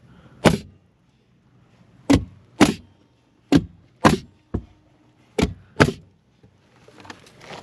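Pneumatic framing nailer firing nails through a new cedar sister joist into the old floor joist: about eight sharp shots, mostly in pairs about half a second apart.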